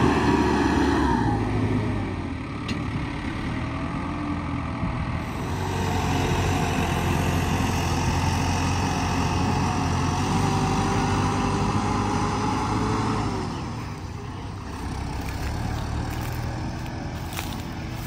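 New Holland TD5.90 tractor's diesel engine running under load as it tows a heavy trolley full of wheat past, with a steady low hum. It grows louder in the middle, then fades as it pulls away about three-quarters of the way through.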